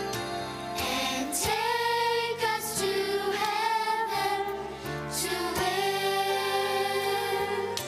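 Children's choir singing a slow Christmas song over instrumental accompaniment, in long held notes.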